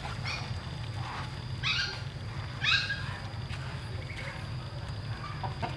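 Domestic cat meowing several times in short calls, the loudest two about a second and a half and three seconds in.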